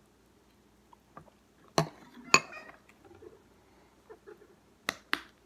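A metal spoon clinking against a cereal bowl: a few sharp clinks, the loudest pair about two seconds in and another close pair near the end, with lighter taps between.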